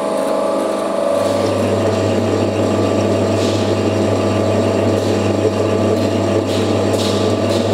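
CNC lathe running, a dense mechanical rattle over its motor; a steady low hum comes in about a second in and holds.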